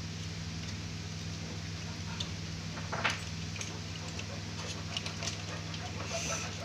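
A few light clicks and knocks of plastic and a circuit board as an HP 1005 printer's power supply board and its wiring are handled, over a steady low hum.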